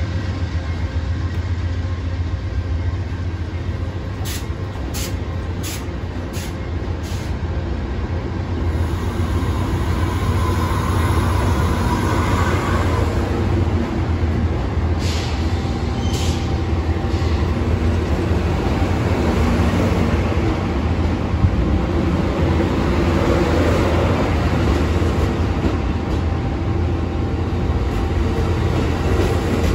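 Amtrak Superliner bi-level passenger cars rolling slowly past on departure: a steady low rumble of wheels on rail. A quick run of sharp clicks comes about four seconds in, and two more come about halfway through.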